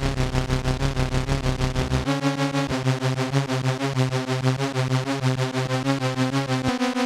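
Formanta Polivoks analogue synthesizer playing a fast, rhythmic pulsing phrase of repeated notes, shifting to a higher note pattern about two seconds in.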